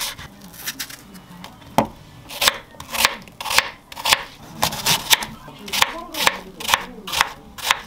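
Kitchen knife slicing an apple on a wooden cutting board: a crisp crunch through the flesh and a knock on the board with each stroke, about two to three cuts a second in an uneven rhythm.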